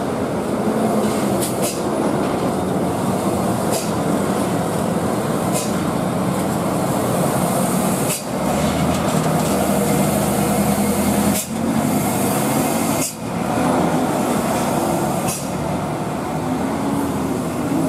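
Diesel engines of heavy trucks running loudly under load as they climb a steep hairpin, a steady heavy rumble that drops briefly three times in the second half.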